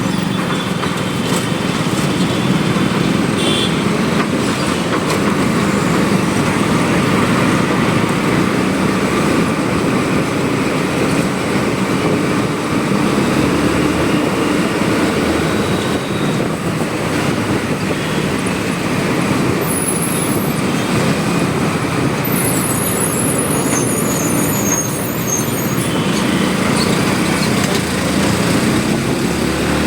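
Motorcycle riding along a road at night: a steady engine note under constant road and wind noise, with a few brief high-pitched squeaks about two-thirds of the way through.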